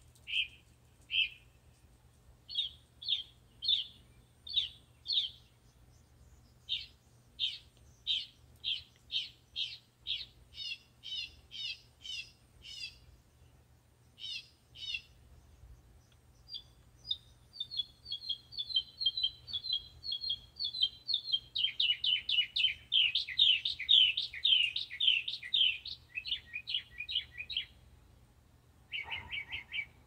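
Northern mockingbird singing: short high notes repeated in phrases that change pattern every few seconds. About halfway through the notes give way to a long, fast chattering run, and a short harsh note comes near the end.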